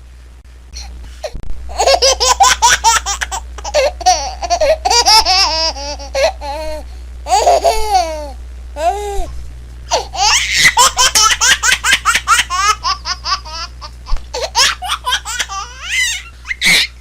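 A baby laughing in quick runs of short, high-pitched giggles, pausing briefly around the middle before laughing again.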